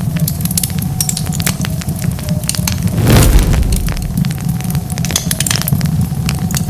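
Wood fire crackling and popping, with many sharp snaps over a steady low rumble of flames. About halfway through, a brief louder rush of noise swells up and fades.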